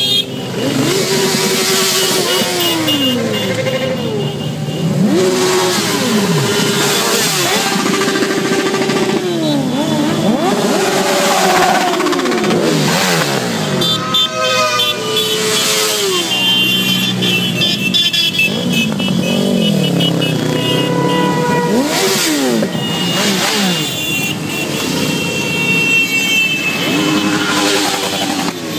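A column of motorcycles riding past one after another, engines revving and each one's pitch dropping away as it goes by, several overlapping at once.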